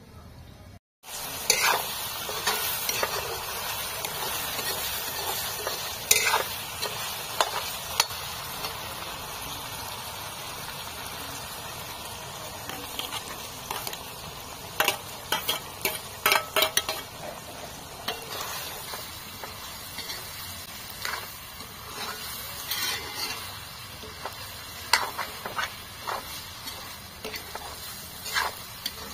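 Chicken frying and sizzling in a kadhai over a wood fire, a steady hiss, while a metal spoon stirs it, its strokes clicking and scraping against the pan again and again.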